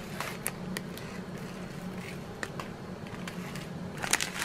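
Faint, scattered crinkles and ticks of small plastic bags of round resin diamond-painting drills being handled, over a low steady hum; the crinkling picks up again near the end.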